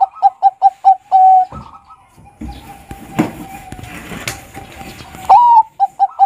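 Bangkok-strain zebra dove (perkutut) cooing: a loud rising opening note, then a quick run of short coos ending on a longer held note. A fainter long steady tone with a couple of sharp knocks fills the middle, and a second cooing phrase starts about five seconds in.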